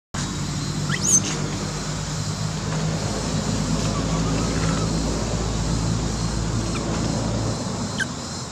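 A steady low engine hum, like a motor vehicle running, easing off near the end, with a short high rising squeak about a second in.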